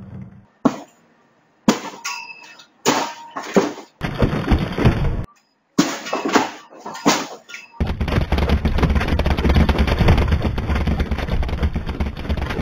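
Fight-scene sound effects: several separate crashes with breaking glass, then from about two-thirds of the way through a dense, continuous din with a heavy low rumble under it.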